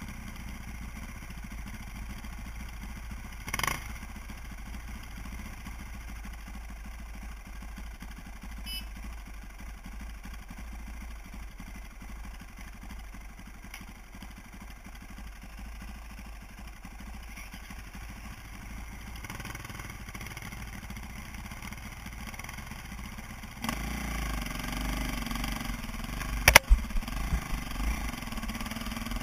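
KTM dirt bike's engine idling steadily, heard through a helmet-mounted camera, with a single sharp knock a few seconds in. About 24 seconds in the bike pulls away and gets louder, with several sharp knocks and jolts as it climbs the rough trail.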